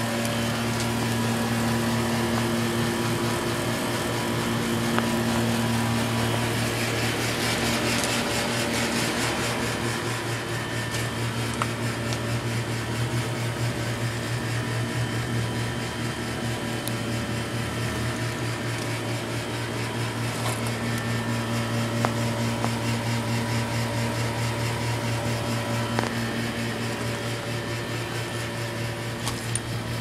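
Carrier central air-conditioner outdoor condensing units running: a steady rush of air from the condenser fan over a steady low hum.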